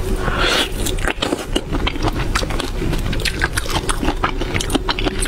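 Close-miked crackling, clicking and wet squelching as a raw shrimp marinated in chili sauce is pulled apart and its shell peeled by hand, with fingers working in the sticky sauce.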